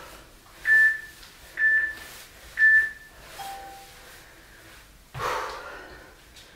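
Workout interval timer beeping: three short high beeps about a second apart, then a fainter, lower, longer tone, the countdown marking the end of a work interval. A short rushing noise follows about five seconds in.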